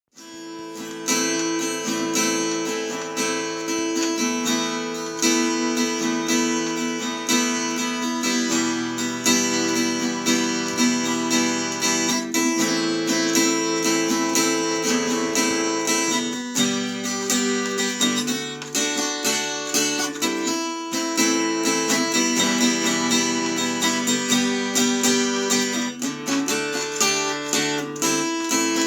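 Instrumental guitar music, with the notes and chords changing every few seconds.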